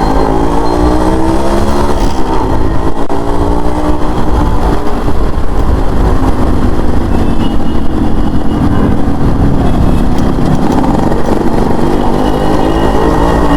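Yamaha RX100's two-stroke single-cylinder engine running as the bike is ridden. Its pitch falls over the first couple of seconds, then climbs again near the end as the throttle opens.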